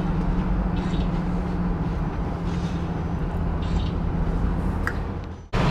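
Vehicle driving: steady engine and road noise with a constant low hum. The sound cuts out for an instant near the end.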